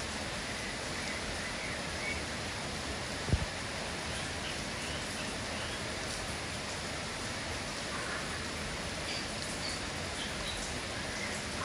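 Steady rain hiss with a few faint, short chirps from a kapas tembak bulbul, and a single dull thump about three seconds in.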